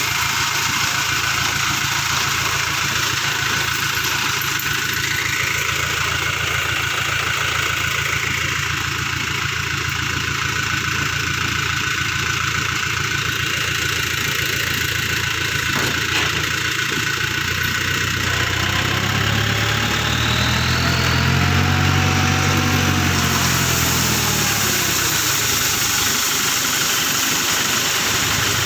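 Steady heavy rain with a vehicle engine running underneath. About 19 seconds in, the engine's pitch rises and then falls over a few seconds.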